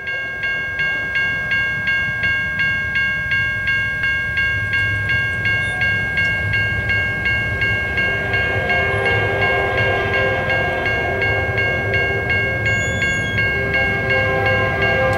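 Railroad crossing bell ringing steadily at about two strikes a second as a train approaches. From about halfway through, the train's horn sounds as a steady chord, growing louder, over a low rumble.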